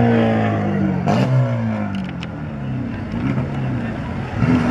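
Dirt-track race car engines revving past, their pitch rising and falling as the drivers work the throttle, with a few sharp knocks about one and two seconds in as a crashed car tumbles over.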